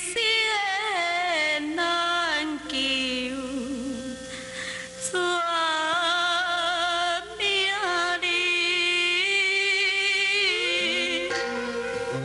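A solo voice sings a slow Taiwanese opera (gezaixi) melody in long, wavering held notes with vibrato. Instrumental accompaniment with plucked string notes picks up near the end.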